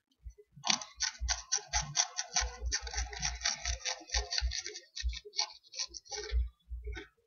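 A person chewing crackers close to the microphone: a quick, irregular run of crunches with dull jaw thumps, thinning out after about five seconds.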